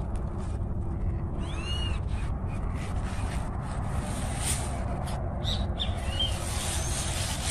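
A few short, arched chirping calls from birds among a flock of foraging chickens, about two seconds in and again near the end, over a steady low rumble.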